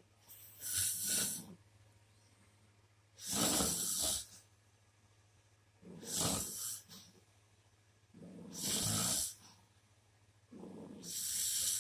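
A Shar Pei dog and a man snoring together: five long, raspy snores, about one every two and a half seconds.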